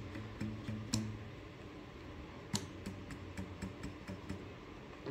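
Faint clicks and light ticks from handling the 3D printer's X-axis GT2 belt and carriage while its tension is checked, with sharp clicks about a second in and near halfway, then a quick run of small ticks.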